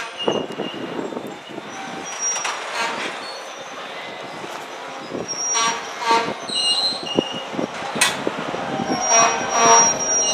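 Freight cars of a passing train, covered hoppers and tank cars, rolling by on steel rails, with short high squeals from the wheels and scattered clanks and knocks. A long steady high squeal sets in near the end.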